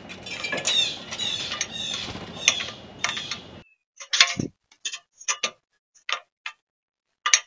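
Outdoor background with birds chirping for about three and a half seconds, then a sudden switch to a string of short, irregular taps and clicks: a blue jay's beak picking up peanuts on a plastic table.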